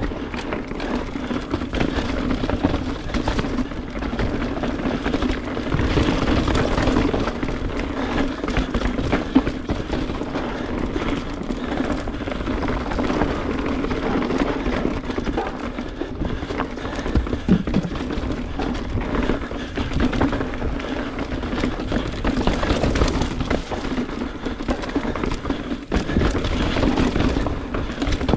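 Mountain bike riding fast down a rocky trail: steady rushing wind noise with the tyres and bike rattling and knocking over rocks.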